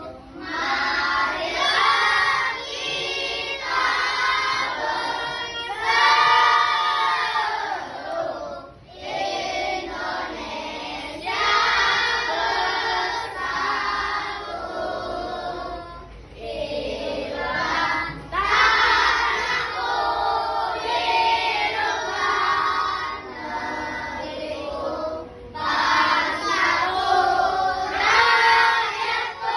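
A group of children singing together in unison, in phrases a few seconds long with short breaks between them.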